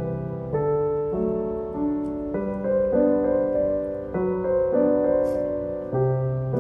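Background piano music: a slow, gentle melody over held chords.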